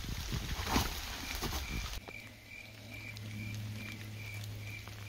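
Rustling and shuffling movement with a few light knocks for about two seconds, then an abrupt change to a steady low drone with a short high chirp repeating about two and a half times a second.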